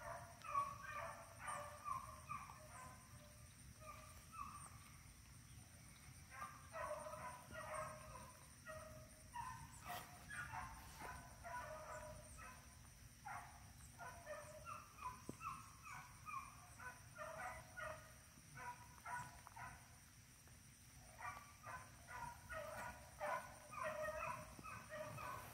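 Beagles baying faintly in the distance on a rabbit chase: clusters of short, quick barks that come and go.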